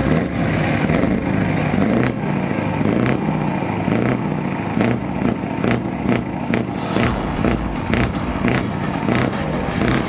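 Scania 164 480's V8 diesel engine running with the truck standing still, heard at its side exhaust pipe. It is a steady, deep exhaust note whose loudness swells and dips in quick pulses.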